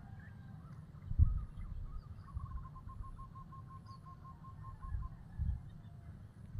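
A bird calling a rapid run of about a dozen evenly spaced, same-pitched notes, about four a second, over a low rumble and knocks on the microphone, the loudest knock about a second in.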